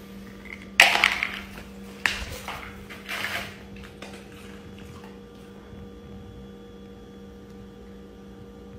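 Splashing and clatter from a clear plastic water bowl on a concrete floor: three short noisy knocks about one, two and three seconds in, the first the loudest. A steady low hum runs underneath.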